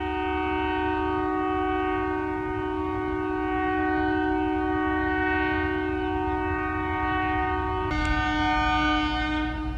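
Indian Railways train horns over a low rumble. One horn is held steady for about eight seconds, then gives way abruptly to a second horn blast that is richer in high tones. The second blast, from an approaching DEMU diesel multiple unit, lasts about a second and a half.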